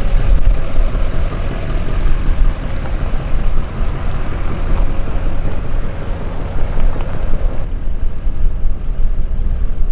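Lifted GMC Sierra Denali HD pickup truck pulling away and driving off, its engine mixed with a heavy, uneven low rumble.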